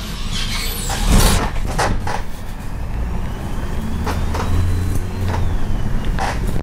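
Cabin of a Dietrich City 21 minibus on a Fiat Ducato base, driven fast over rough road: a steady low engine drone, with the body and fittings creaking and knocking over the bumps. The creaking is a sign of a worn, unreliable bus.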